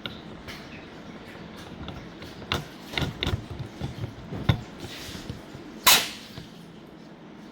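Handling noise from small parts being worked on by hand: scattered short clicks and knocks, with one sharper, louder click about six seconds in.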